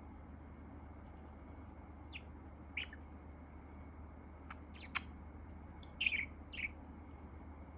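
Budgerigar giving a few short, high chirps and squawks at irregular intervals, the loudest a little past the middle.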